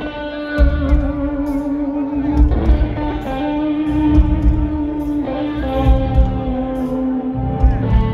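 Live rock band playing loud through a concert PA, heard from among the audience: electric guitar holding notes over a steady low beat of bass and drums.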